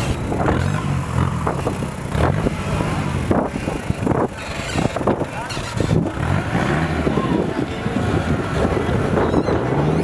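Off-road 4x4 engine running and revving up and down repeatedly, with scattered knocks and clatter.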